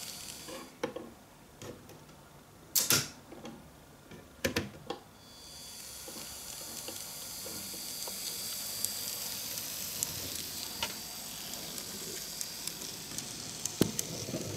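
Kato N gauge Type 8620 steam locomotive model: the faint high hiss of its small motor running stops, a few sharp clicks and knocks follow as the model is handled, and then the motor hiss starts again as it runs along the track with light ticks, ending in a cluster of clicks.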